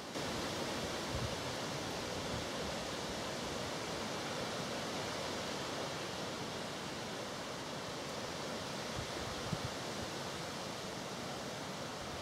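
Steady, even rushing noise of the outdoors on the camera microphone, with one soft knock about nine and a half seconds in.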